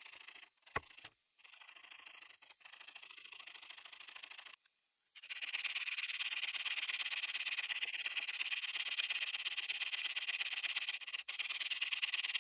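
A single sharp knock about a second in, then from about five seconds in a hand saw cutting steadily through a spalted maple slab, an even rasp of the teeth in the wood.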